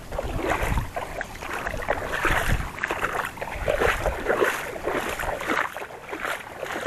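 Shallow lake water splashing and sloshing irregularly as a hooked snakehead is pulled thrashing from the surface. Wind rumbles on the microphone for the first couple of seconds.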